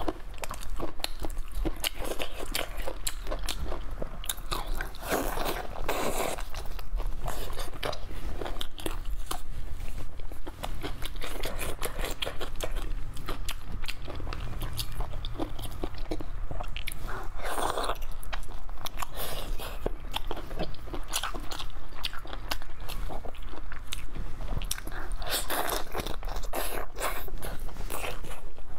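Close-miked eating of braised beef on the bone: biting, chewing and gnawing meat off the bones, with many small clicks and crunches and a few louder bites.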